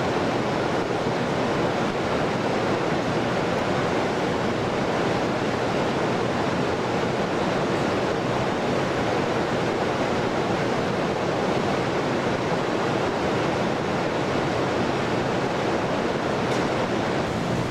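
Ventilation air rushing through the building's ducting, a steady even noise with no breaks or changes.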